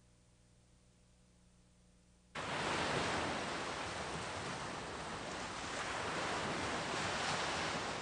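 Near silence, then about two seconds in, the sound of ocean waves and surf starts suddenly: a steady rushing wash of sea water that swells and eases slightly.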